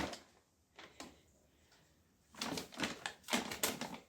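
A dog scratching and digging at its bedding: a run of quick clicks and rustles that starts about two seconds in, after a near-quiet moment with a couple of faint ticks.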